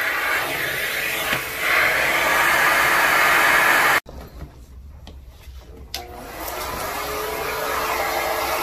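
ProTeam Super Coach backpack HEPA vacuum running, its airflow rushing as it sucks up synthetic teddy-bear stuffing and filler beads. The sound drops off sharply about four seconds in, stays much quieter for about two seconds, then builds back up.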